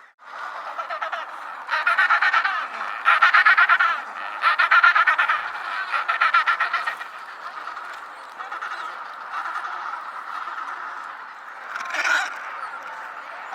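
Penguins calling in a colony: several loud, harsh, rapidly pulsing calls come one after another between about two and seven seconds in. Quieter calling follows, with another call near the end.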